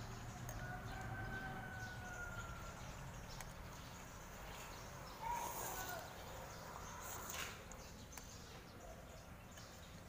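A person slurping noodles, with two short slurps about five and seven seconds in, over faint background noise.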